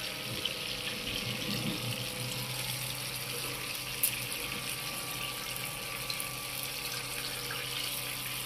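Hot oil sizzling steadily in a frying pan as chicken wings fry, an even hiss with one sharp click about four seconds in.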